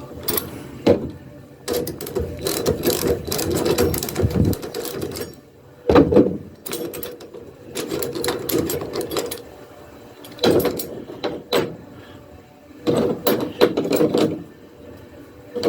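Metal clicking and rattling in several bursts as the Truxedo tonneau cover's latch hardware is unbolted and a piece is worked off.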